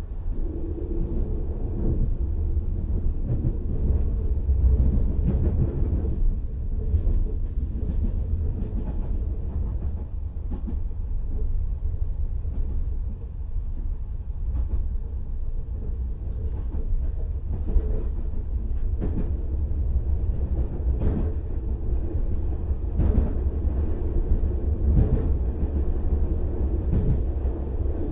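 Regional French train running along the track: a steady low rumble with scattered sharp clicks of the wheels over rail joints, coming more often in the second half.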